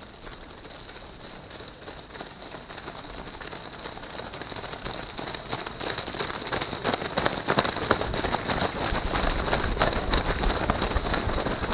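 Footsteps of a large pack of runners on a paved road: a dense pattering that grows louder as the field approaches and passes close by, thickest from about halfway through.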